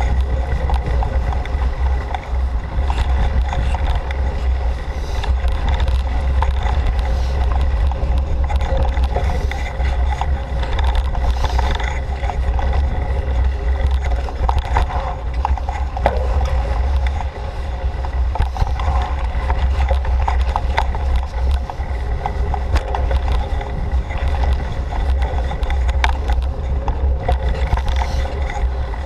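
Steady low rumble of wind and tyres from a camera riding on a bicycle along a dirt forest trail, with scattered rattles and clicks from the bike over bumps.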